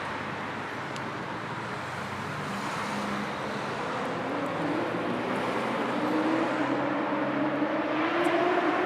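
Road traffic: a steady rush of vehicle and tyre noise, with an engine rising in pitch during the second half as a vehicle accelerates, the sound growing gradually louder.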